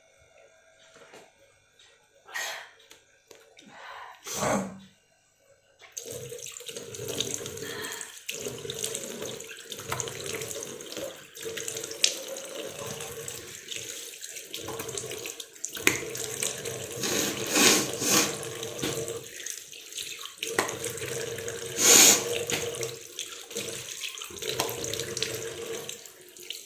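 Two short sounds in near quiet, then a tap starts running into a wash basin about six seconds in. Water is splashed in bursts over the running stream as a face is washed.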